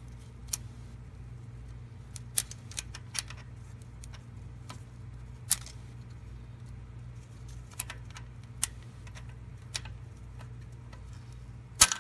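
Irregular light metallic clicks and taps as a magnet tool and a loosened roller follower are wiggled against the valve springs and camshaft in an open Ford 5.4L three-valve V8 cylinder head, the sharpest click near the end, over a steady low hum.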